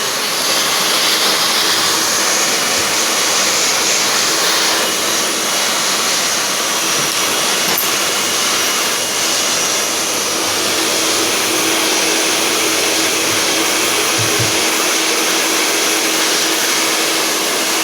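Hair dryer blowing steadily with a faint hum, warming an Apple Watch screen to soften its adhesive before it is pried off.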